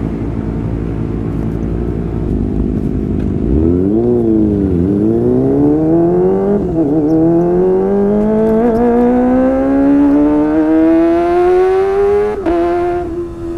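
Kawasaki ZX-25R inline-four engine through a Sportisi Motorsport SRX aftermarket exhaust, pulling hard with the revs climbing steadily for several seconds to a high-pitched scream. Near the end the pitch drops sharply and then holds steady.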